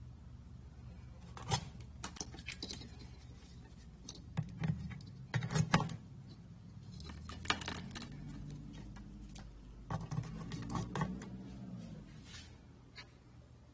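Irregular clinks, knocks and rattles of hard objects being handled and moved, in several clusters, over a steady low hum.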